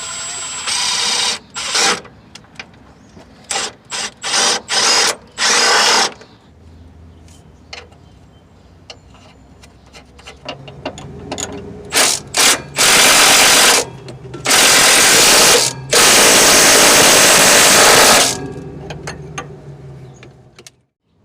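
Power tool run in a string of short bursts, then several longer runs of one to two seconds each.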